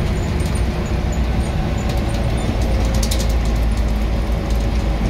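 Scania N94UB single-deck bus under way: a steady low drone from its diesel and running gear, with a faint steady whine partway through. Light clicks and rattles start about three seconds in.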